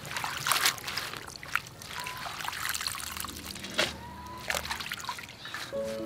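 Hands swishing and squeezing water spinach in a steel basin of water: irregular splashing and dripping as the greens are washed. Background music comes in near the end.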